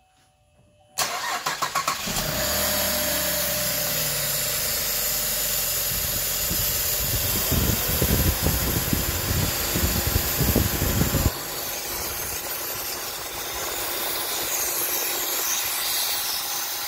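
A junkyard replacement engine in a 2012 Chevy Equinox cranking on the starter for about a second, catching, then running at a fast idle that settles lower: its first start after the engine swap. For a few seconds around the middle its low rumble grows heavier and uneven, then it drops off suddenly and the engine runs on steadily.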